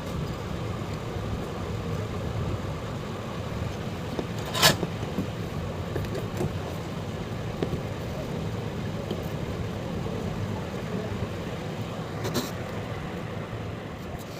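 Steady low background rumble, with a sharp click about five seconds in and a fainter one near the end.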